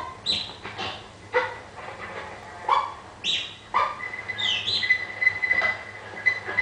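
Film soundtrack played through cinema speakers: a string of short, sharp animal calls with quick pitch slides, and a steady high warbling trill that joins about four seconds in.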